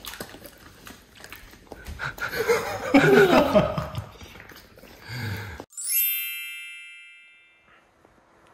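Wavering pitched cries over mixed sound, then a sudden cut and a bright chime that rings out and fades over about two seconds.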